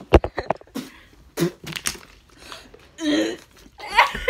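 A few quick knocks of the phone being handled, then short coughs, throat noises and wordless exclamations from someone reacting to a foul-flavoured Bean Boozled jelly bean.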